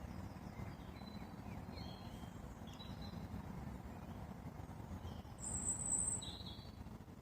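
Wild birds chirping and calling in short notes, with one loud, high, thin note about five and a half seconds in, over a steady low rushing background noise.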